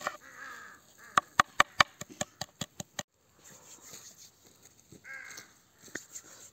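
A bird calling a few times in short calls. About a second in, a quick run of sharp knocks, about five a second, dies away within two seconds.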